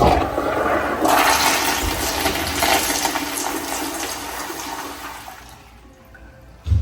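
Toto toilet flushing: a click as it starts, then about five seconds of loud rushing water that fades away. A short low thump comes near the end.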